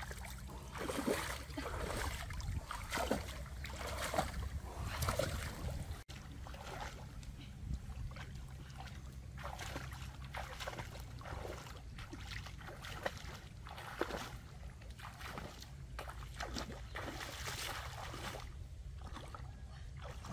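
Splashing footsteps of a person wading barefoot through a shallow, rocky stream, the water sloshing around her legs with each step.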